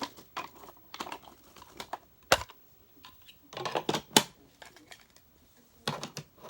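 Hard plastic clicking and knocking as attachments are fitted back onto a Hoover upright vacuum, in irregular clusters with one sharp knock about two seconds in.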